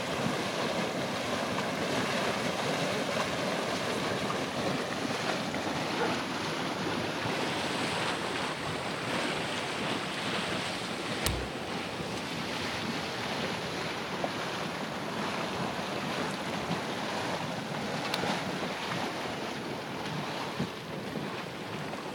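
Steady rushing, surf-like noise of wind on the microphone mixed with the churning mud pool of Yellowstone's Mud Volcano; a single sharp click about eleven seconds in.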